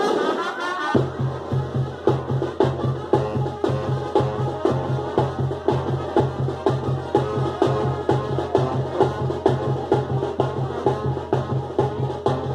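Traditional dance music: a steady drum beat of about three strokes a second with a low pulsing bass under a melody. The beat comes in about a second in.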